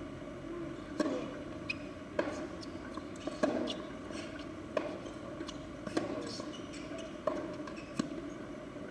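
Tennis ball knocks: sharp hits about every second and a quarter, with fainter bounces between them, as in a rally.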